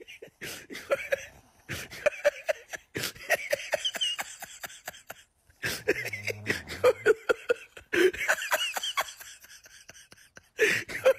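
A person laughing in short bursts of giggles and chuckles, in several spells with short pauses, over many small sharp clicks.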